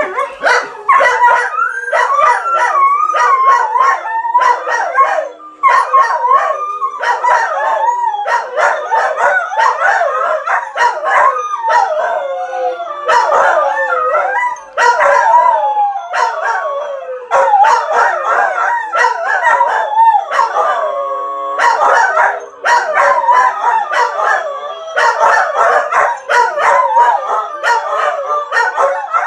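Two dogs, a husky and a white short-haired dog, howling together in long overlapping howls, their pitches wavering up and down.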